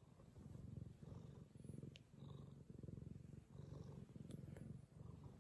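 Domestic cat purring softly right at the microphone, a low pulsing purr that swells and eases with each breath, about one breath every 0.7 seconds.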